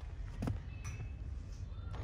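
A few light knocks from metal parts being handled, over a low steady rumble.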